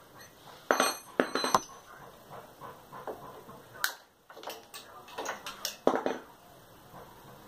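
Metal clinks and knocks from hands working cables and parts on a stripped-down motorcycle frame: several sharp clicks, loudest about a second in and again near six seconds.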